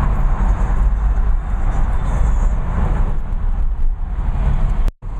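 Road and engine noise inside a moving car: a steady low rumble that cuts out abruptly for an instant near the end.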